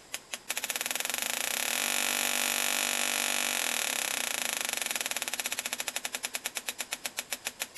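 High-voltage sparks from an ignition coil snapping across an air gap from the coil cable's end to an aluminum plate, driven by a coil tester. The snaps come as separate ticks, speed up into a rapid buzz about half a second in, then slow back to distinct ticks from about five seconds on. The steady sparking shows the coil is working.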